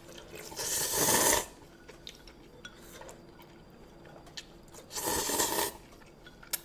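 Close-miked mukbang eating sounds: two loud rushing bursts, one about a second in and one near the end, with light clicks and clinks of utensils between them.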